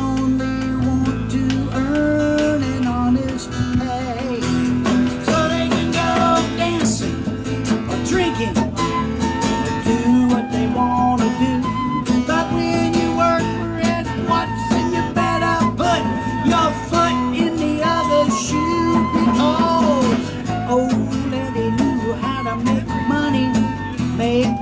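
Live folk band playing an instrumental break: a flute carries the melody over a strummed acoustic guitar, bass guitar and hand drums.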